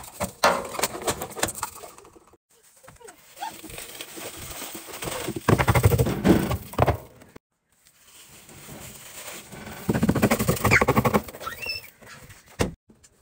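Powdered laundry detergent poured into an empty stainless-steel washer drum, the granules hissing and pattering onto the metal. It comes as several separate pours with brief silent breaks between them, the loudest about six seconds in and again near ten seconds.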